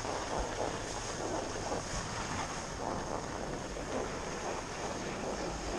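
Steady wind rushing over the microphone, an even rough hiss with no distinct events.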